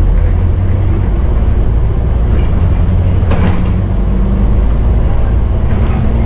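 Scania N230UD double-decker bus under way, heard from inside the lower deck: a steady low drone from its five-cylinder diesel engine mixed with road noise. A brief sharper noise stands out a little over three seconds in.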